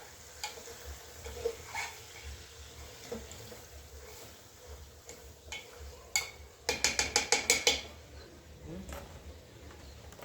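A spoon stirring food in a cooking pot, with scattered clinks of the spoon against the pot. About two-thirds of the way in comes a quick run of about ten taps in a second, like a spoon rapped on the pot's rim.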